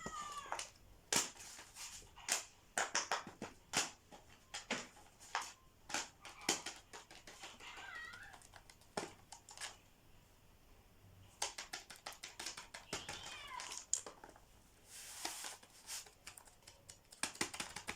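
A pet animal's short gliding calls, heard three times, among many sharp clicks and taps.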